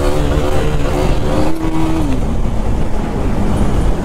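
Motorcycle engine running under way at road speed, its pitch holding steady and then dropping about two seconds in as the revs fall. A steady rushing wind and road noise runs under it.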